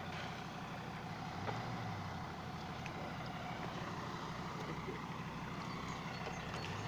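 A motor vehicle's engine idling steadily, a low even hum.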